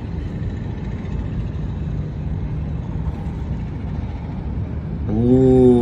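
Steady low background rumble. About five seconds in, a loud held tone with a slightly falling pitch sets in.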